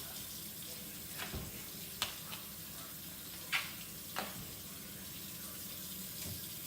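Kitchen tap running steadily into a sink while raw chicken breast is rinsed and cleaned, with about four brief sharp sounds from the handling.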